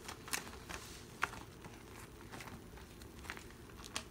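Clear plastic binder sleeve pages crinkling as they are handled and turned, with several short, sharp crackles.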